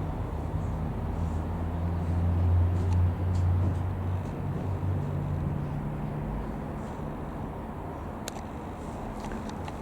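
Skyranger Nynja ultralight's piston engine and propeller droning as it passes, rising to its loudest about three seconds in, then fading away by about six seconds in.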